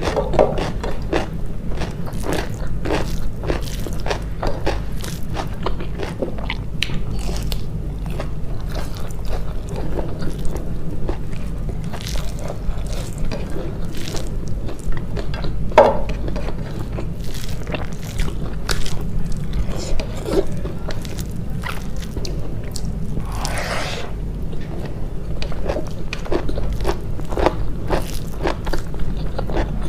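Close-miked eating: steady chewing with many short crunches and mouth clicks over a steady low hum.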